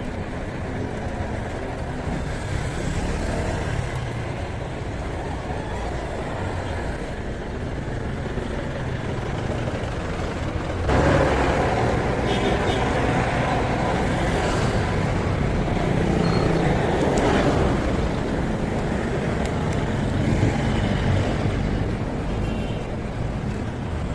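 Road traffic noise with a steady low rumble. It grows louder for several seconds from about eleven seconds in, as vehicles pass close by.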